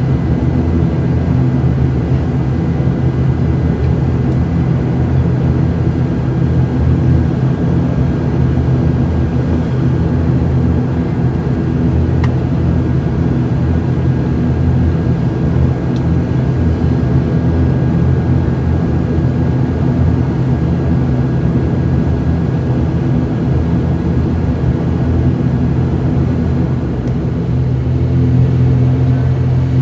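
Steady drone of an ATR 72-600's twin Pratt & Whitney PW127M turboprops and propellers, heard inside the passenger cabin as a deep, even hum with a faint high whine above it. The low hum shifts slightly near the end.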